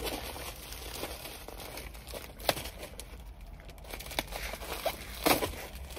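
Plastic packaging crinkling and tearing as a large package is opened by hand, with a few sharp snaps of plastic scattered through it; the loudest comes near the end.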